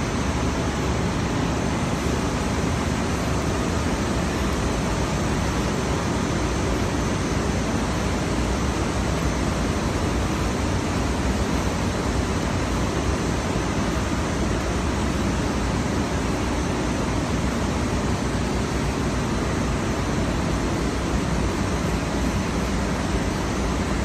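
Steady, even running noise of CAT6 network cable production machinery: wire pay-off and pair-stranding machines in operation.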